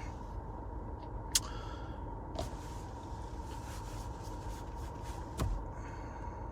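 Steady low background rumble with a faint steady tone running through it, and a few soft clicks: one about a second and a half in, one at two and a half seconds, one near the end.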